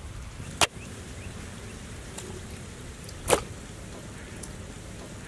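Wet goat tripe being peeled and handled by hand over a steel bowl: two short sharp sounds about two and a half seconds apart, over a steady faint hiss.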